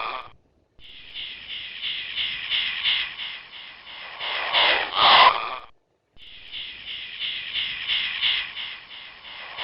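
Harsh pulsing animal calls from a tree, a run of quick rasping notes building to a louder climax. Each run breaks off abruptly and starts over, twice in about five seconds.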